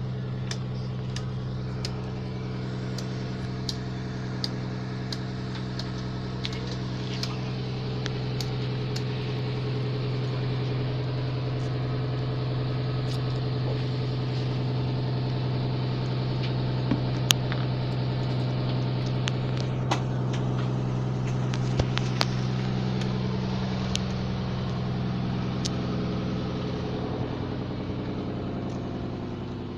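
A fishing boat's engine running steadily with a low, even hum. Scattered sharp clicks and knocks of gear on deck ring out over it, a couple of them louder about two-thirds of the way through.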